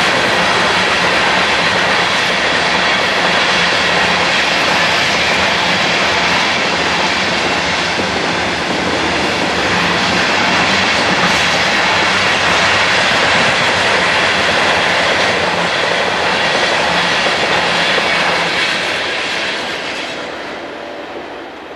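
A CSX coal train's hopper cars rolling steadily past a grade crossing. The noise falls away in the last few seconds as the end of the train goes by.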